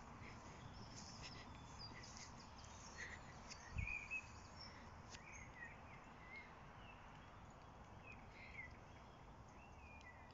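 Faint birdsong: scattered short chirps from small birds over a quiet outdoor background, with one brief low thump about four seconds in.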